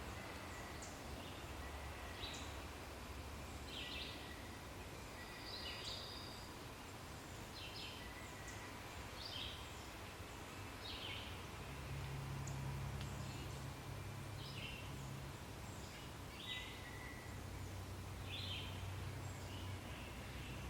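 Faint outdoor ambience with birds giving short, repeated high chirps about every one to two seconds, over a faint low hum.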